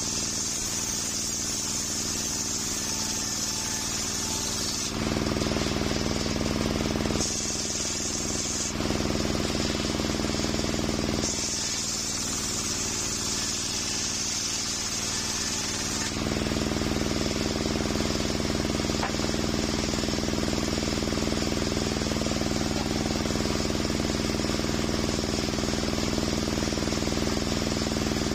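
Large sawmill circular saw running steadily under its drive's hum while ripping a coconut-wood plank, with a high hiss from the cut. The sound changes abruptly several times; from about 16 seconds in the blade runs on without the cutting hiss.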